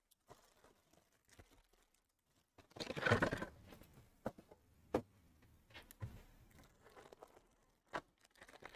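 Foil-wrapped Bowman Draft baseball card packs being handled: a crinkly rustle of the wrappers about three seconds in, the loudest sound, then scattered light taps and knocks as packs are set down on and picked up from a wooden table.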